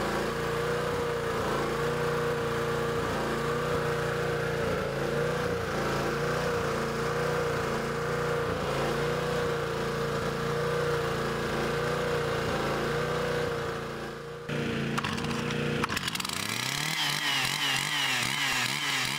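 Petrol chainsaw engine running at a steady speed. About three-quarters of the way in it dips briefly, then revs up and down over and over.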